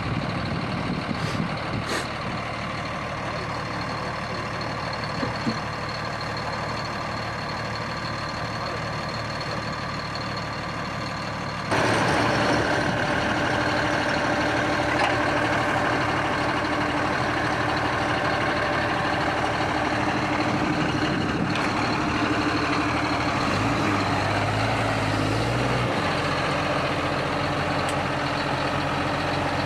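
Diesel engines of JCB farm machines running steadily: first a JCB Loadall telehandler idling, then, after a sudden jump in loudness about twelve seconds in, a JCB Fastrac tractor and the telehandler running louder, with a deeper engine note for a couple of seconds later on.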